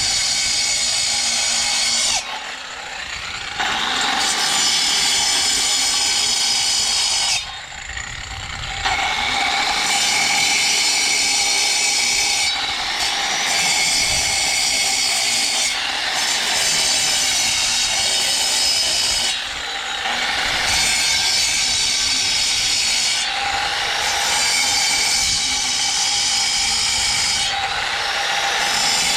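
Angle grinder cutting through an interlocking wall section, running under load with a steady high whine and several brief dips where the cut eases off.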